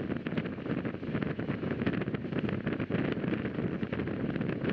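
Rajdhani Express passenger train running on the rails, heard from aboard: a steady rumble and rush with frequent short rattles and clicks.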